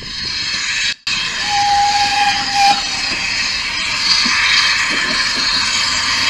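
Steady hiss of steam escaping from a steam locomotive, with a single short whistle note held for about a second near the start.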